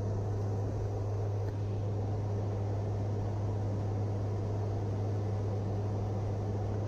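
Aircraft cabin drone: a steady low engine hum under an even rushing noise, heard from inside a plane.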